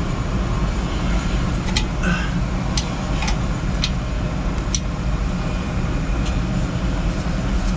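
Steady low background rumble, with a handful of sharp metallic clicks in the first five seconds: a hand tool working the igniter lead's coupling nut loose on an APS3200 auxiliary power unit.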